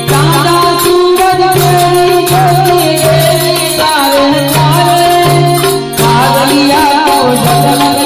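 Gujarati devotional aarti music: a wavering sung melody over held harmonium chords, with jingling tambourine-like percussion and a low note that pulses on and off.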